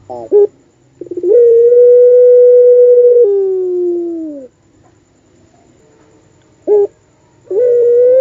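Puter pelung dove giving its long cooing call. A short stuttered note is followed by a steady drawn-out coo held for about two seconds, which then slides down in pitch. A brief note comes before a second long coo near the end.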